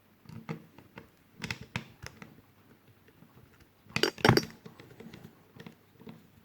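Airsoft V2 gearbox being handled with tools on a hard surface: a series of light clicks and clinks, with a louder clatter about four seconds in.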